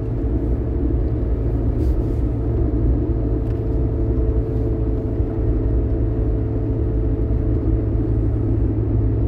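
Engine and road noise inside the cabin of a moving Peugeot car: a steady low drone with a faint steady whine over it.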